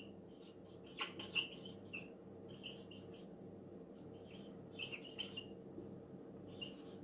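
Dry-erase marker squeaking on a whiteboard in a series of short, high strokes as words are written out by hand.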